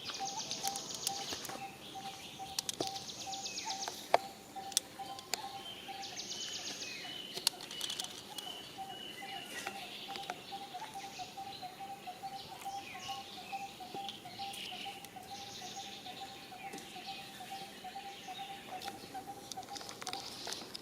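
Forest ambience of birds and insects calling. A single note pulses steadily a few times a second throughout, over buzzy high trills and chirps, with a few sharp clicks about four to seven seconds in.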